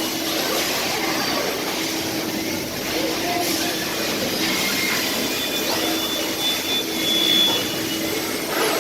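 Steady noise of factory machinery, with a faint low hum and short high whine tones that come and go.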